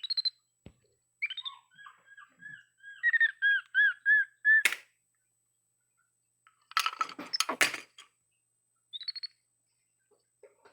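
Baby capuchin monkey giving a run of short, high, arching chirps, about two a second, ending with a sharp click. A few seconds later comes a brief burst of rattling and clattering.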